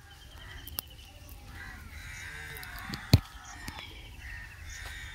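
Birds calling in the background, crow-like caws among them, over steady outdoor ambience. A single sharp click comes about three seconds in.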